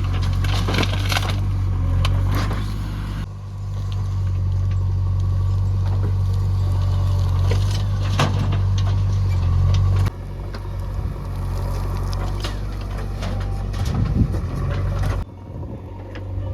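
Heavy diesel engine of a backhoe loader running hard as it loads earth into a tractor trolley, with sharp clattering knocks in the first few seconds. The engine note drops abruptly about ten seconds in and falls again near the end.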